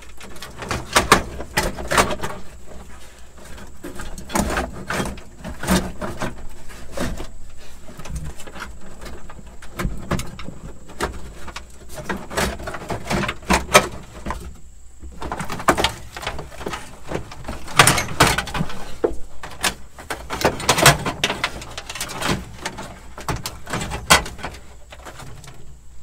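Old truck wiring harness being pulled and worked loose from behind the dash: irregular rustling, scraping and clicking of wires, old electrical tape and connectors, in uneven bursts.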